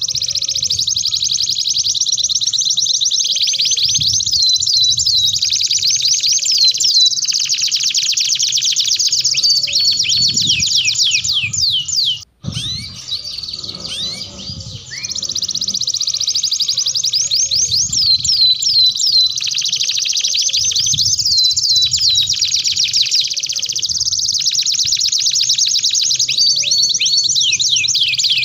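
Domestic canaries singing a long, continuous song of rapid high-pitched trills and rolls, broken by a sudden short gap about twelve seconds in.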